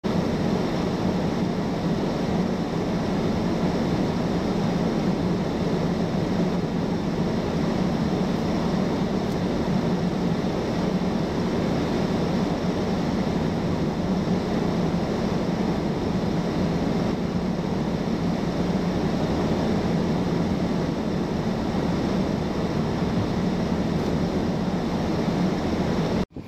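Steady vehicle drone: a constant low hum under an even hiss of road or wind noise, unchanging throughout.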